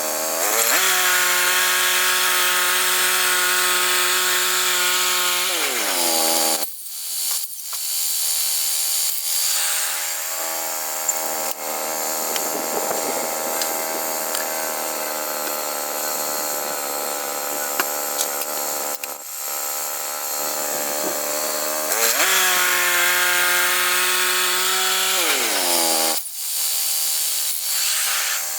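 Gas engine of a Woodland Mills HM122 portable band sawmill running hard, its pitch dropping and sagging under load for a long stretch in the middle, which fits the band blade cutting through a log, then rising back up before dipping again near the end.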